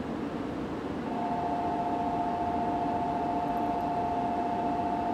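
Shinkansen platform departure signal: a steady two-tone electronic tone that starts about a second in and holds for about four seconds over the hum of the stopped train and the station.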